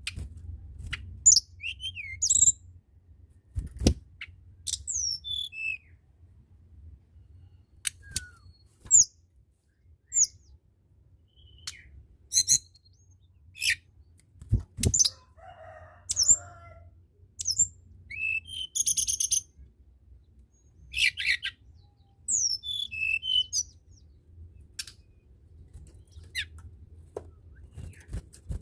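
Tledekan gunung songbird singing: short high whistled notes, many sliding down in pitch, spaced by pauses, with a fast buzzy trill about two-thirds of the way through. A faint low hum runs underneath.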